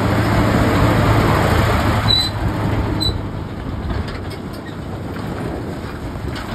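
KAMAZ dump truck's V8 diesel engine running as it drives past on a gravel road, with tyre noise and the towed caravan and tank trailers rattling. Two short squeaks come about two and three seconds in, and the sound eases off as the truck moves away.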